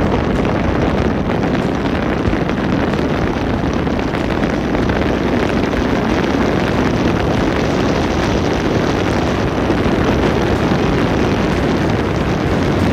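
Steady, loud rushing noise of a moving vehicle, with wind buffeting the microphone.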